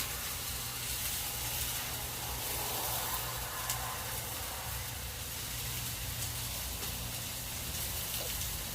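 Cornstarch-coated chicken pieces frying in a hot pan, with a steady sizzle and a low hum underneath.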